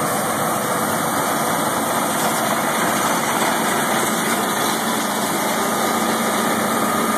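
John Deere 9670 STS combine running steadily while harvesting wheat: a dense, even machine drone with a faint steady whine above it.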